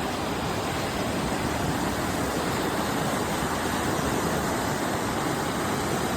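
Flooded river rushing fast and high, a steady, even noise of water running strongly enough to spill over its banks.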